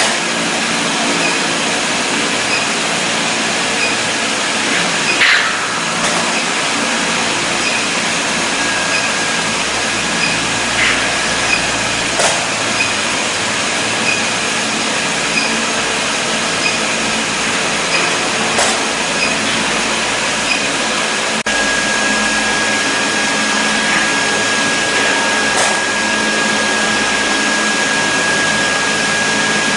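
Steady machine hum and air-like hiss from workshop equipment, broken by a few sharp clicks several seconds apart; a steady high whine comes in about two-thirds of the way through and holds.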